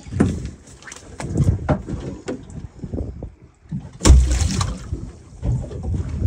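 Irregular knocks, thumps and wet slaps as a live small hammerhead shark is handled and flops on the wet deck of a small fishing boat, with one heavy thump about four seconds in.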